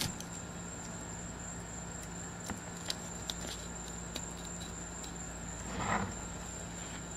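Fish knife cutting into a whole yellow jack on a plastic cutting board, with a few small clicks and taps of the blade, then a short scraping rustle about six seconds in as the fish is handled on the board, under a steady faint high whine.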